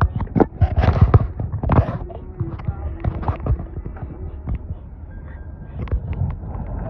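Knocks, bumps and rubbing of a handheld phone being moved about against its microphone, many sharp clicks close together in the first two seconds and scattered after, over a steady low car-cabin rumble.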